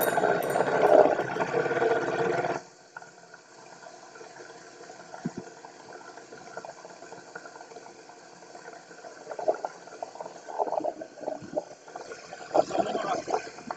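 Water sloshing and splashing against a small boat. It is loudest for the first couple of seconds, then drops suddenly to a faint wash, with irregular splashes returning near the end.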